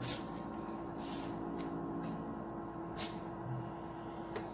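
Light clicks and rubbing of hands working on parts in a car's engine bay, over a steady low hum.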